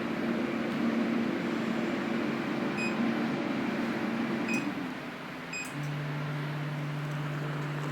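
An electronic device running on test after its control board was repaired: a steady electrical hum with three short high beeps, then the hum changes to a lower steady tone about six seconds in.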